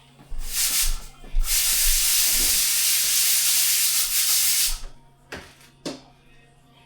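A steady hiss lasting about three and a half seconds, after a shorter burst of the same, then two light knocks near the end.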